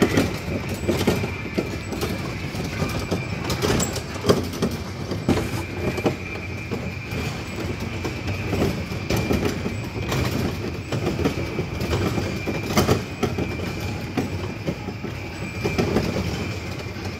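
Small ride-on visitor train rolling along its track: a steady rumble with irregular sharp clacks from the wheels and a steady high whine.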